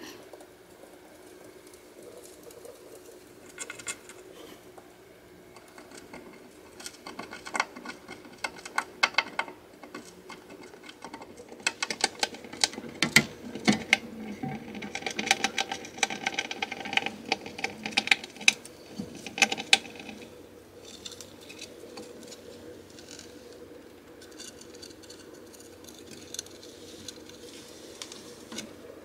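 Djungarian hamster scrabbling at its clear plastic cage, its claws making irregular bursts of rapid small clicks and scratches, busiest in the middle and thinning toward the end.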